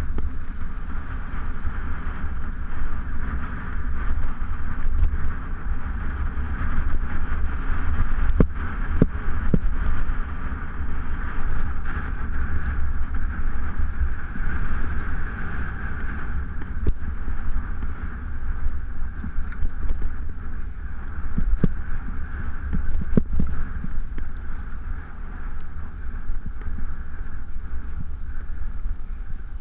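Mountain bike riding fast over a dirt trail: a steady rumble of wind on the handlebar camera's microphone and tyres on dirt, with scattered clicks and rattles from the bike over bumps and gravel.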